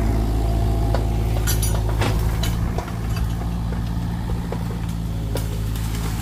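Kubota mini excavator's diesel engine running steadily while its arm works into a tree, with a few short sharp cracks and clicks.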